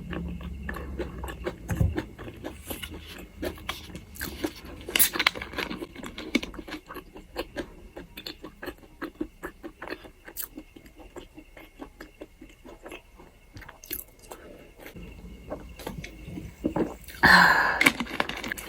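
Close-up mouth sounds of a person chewing and crunching food: a dense run of quick wet clicks and crackles, with a short louder noise near the end.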